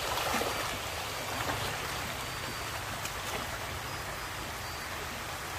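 Shallow stream water running and splashing around a man's legs as he wades, with a faint steady low hum underneath.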